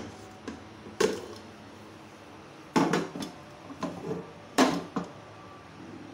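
Wooden spatula stirring chunks of mutton in gravy in a metal pressure cooker pot, knocking against the pot's side and bottom: several sharp knocks, the loudest about a second in, near three seconds and around four and a half seconds.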